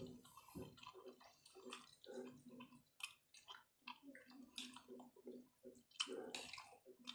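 Faint close-up wet chewing and mouth smacking of someone eating chicken, with irregular small clicks, some from a spoon.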